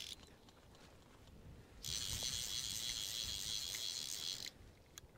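Fly reel's click drag buzzing as line runs on or off the spool while a hooked trout is played: a brief spell at the very start, then one of about two and a half seconds from just under two seconds in.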